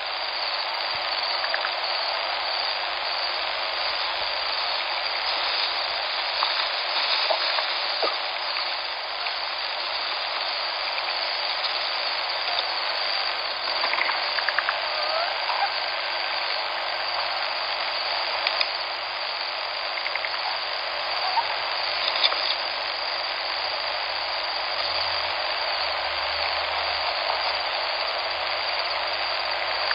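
Steady rush of flowing river water, with a few faint clicks and short chirps scattered through it.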